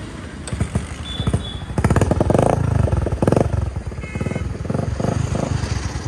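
Bajaj Platina motorcycle's single-cylinder four-stroke engine kick-started, catching about two seconds in. It is blipped twice with the throttle and then settles into an idle.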